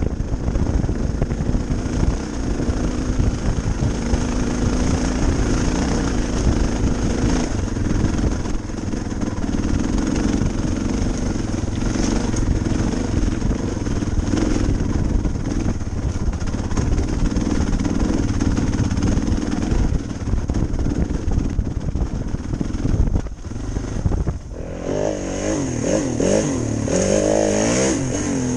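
Dual-sport motorcycle engine pulling at low speed up a rocky trail, a steady rumble under load. About 24 seconds in it cuts to a dirt bike engine revving up and down repeatedly as it rides a trail.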